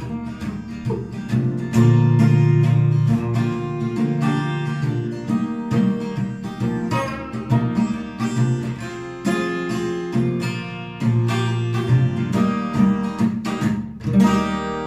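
Steel-string acoustic guitar, capoed, strummed in a steady rhythm with single notes picked between the chords, without singing: the instrumental outro of the song.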